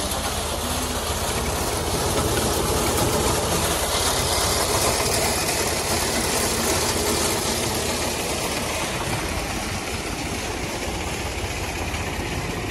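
A tractor engine running steadily under load, with a tractor-mounted wheat reaper's cutter bar and conveyor working through the crop.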